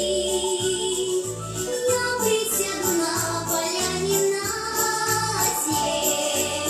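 A young female singer performing a pop song with accompaniment: a pulsing bass line and jingling, shaker-like percussion.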